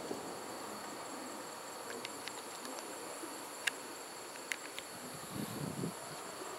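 A steady, high-pitched chorus of night insects. In the second half come a few faint sharp pops and soft low thuds from distant fireworks.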